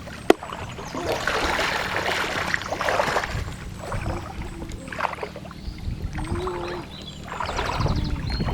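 Water splashing and sloshing in a few repeated swishes, each about a second long.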